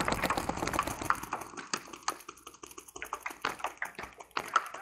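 Paintball markers firing rapid strings of shots at a breakout: a dense stream of pops for about the first second and a half, then sparser, separate shots.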